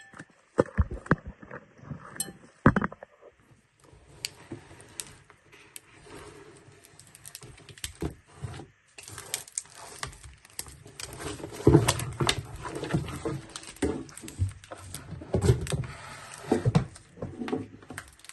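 Hands unpacking and handling a Himalayan salt lamp and its packaging: an irregular run of clicks, knocks and light clinks with some rustling, busier in the second half.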